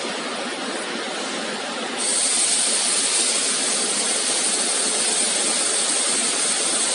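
Steady machine noise from a robotic laser welding machine. About two seconds in, a loud, high, steady hiss of air or gas switches on and holds.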